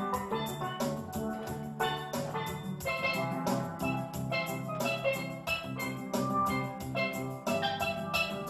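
A steel drum duo playing a lively tune: quick, ringing struck pan notes over a steady low bass line.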